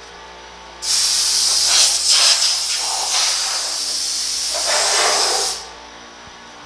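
Compressed-air blow gun blasting air over a primed steel truck bed to clear dust before priming: a loud hiss that starts about a second in and cuts off after about five seconds, its tone shifting as the jet plays across the panels.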